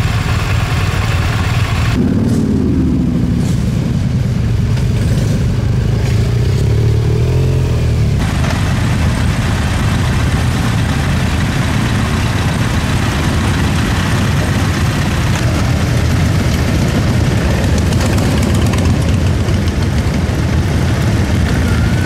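Motorcycle engines running and idling, with revs rising and falling in the first part.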